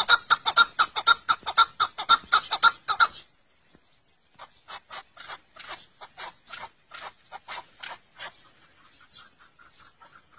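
Chukar partridge calling: a fast series of clucking chuk-chuk notes, about five a second. The notes are loud for the first three seconds, then after a short pause come back quieter and fade.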